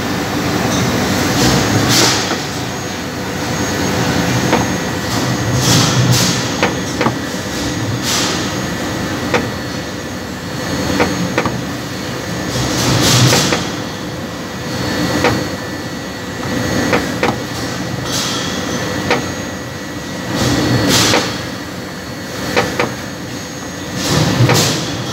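Hollow-ram hydraulic jack, driven by a hydraulic pump, pressing a V-belt pulley onto a screw compressor shaft. A steady mechanical din runs throughout, with a hissing surge every few seconds and scattered sharp metallic clicks.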